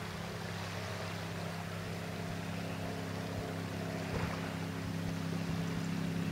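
Powerboat's Ford 460 big-block V8 running steadily at speed, a low, even drone that grows slightly louder near the end.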